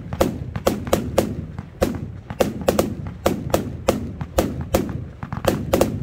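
Lesli Black Caiman compound firework cake firing shot after shot in quick succession, about four bangs a second, with a low rumble between them.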